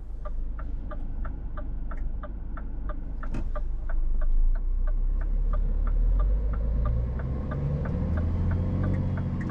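Turn-signal indicator ticking about three times a second inside a Scania S450 truck cab, over the low running of its six-cylinder diesel. The engine note rises near the end as the truck pulls away.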